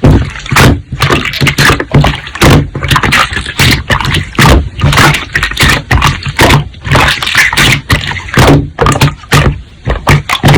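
Slime being squeezed, pressed and poked by hand, making a quick irregular run of wet squishes, pops and crackles, two or three a second.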